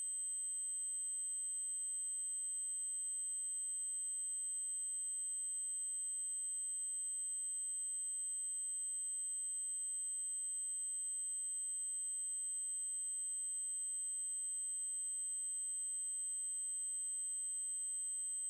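An electronically generated 8192 Hz triangle-wave tone, held steady at one very high pitch without any change.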